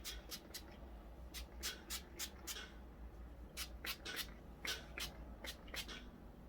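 Short hissing bursts from a hand-pumped spray bottle misting heat-protectant spray onto hair, about twenty quick pumps at an uneven pace over a faint low hum.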